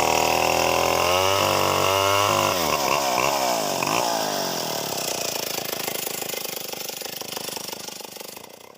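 Chainsaw engine running while cutting wood, its pitch sagging briefly under load about a second in, then revving up and down a few times around three to four seconds in before the engine note drops away and the sound fades out.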